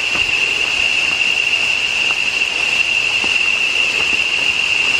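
Loud, steady drone of rainforest insects: one high pitch held without a break. A few faint footsteps scuff on the dirt trail.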